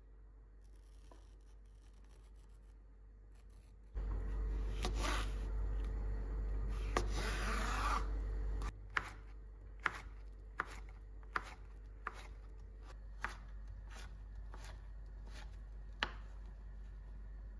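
Kitchen knife slicing a cucumber into rounds on a wooden cutting board: about a dozen sharp knocks at uneven spacing as each cut meets the board, through the second half. Before the slicing, a louder rubbing, scraping noise lasts about four seconds.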